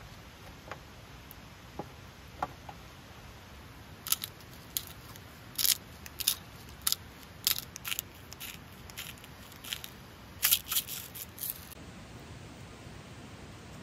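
Hand-twisted grinder mill grinding salt and pepper: a run of sharp, crunchy clicks, one or two a second and sometimes in quick clusters, lasting several seconds from about four seconds in.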